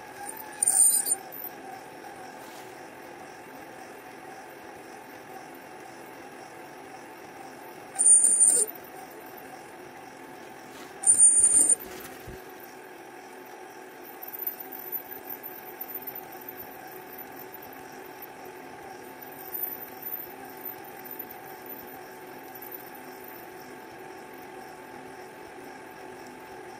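Milling machine spindle driving a Wohlhaupter UPA4 boring and facing head round a steel shaft, taking a finishing pass on its bearing journal: a steady machine hum with light metallic rattling. Three short, loud, high-pitched bursts stand out: about a second in, then twice close together midway.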